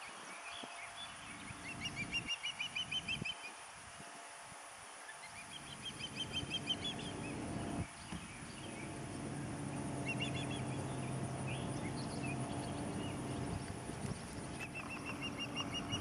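Ospreys calling: four runs of quick, high chirps in rapid series, each lasting a second or two. A steady low drone sets in about halfway through.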